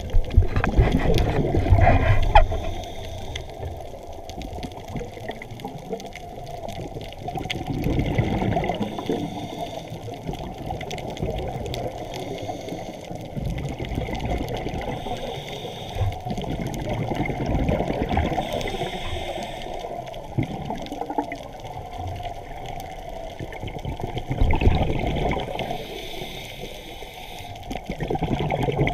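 Scuba regulator exhaust bubbles heard underwater: muffled bubbling and rushing that swells in bursts every five or six seconds as the divers breathe out, over a steady low water rumble.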